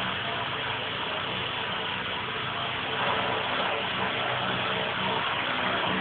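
E-sky King 2 electric RC helicopter hovering: steady whine of the motor and rotor blades, a little louder about three seconds in.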